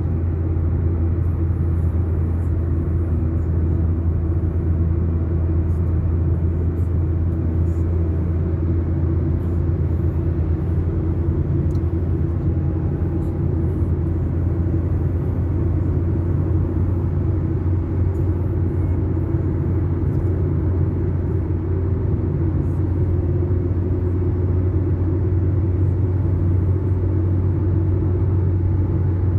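Steady low rumble of a motor vehicle running, even in level throughout.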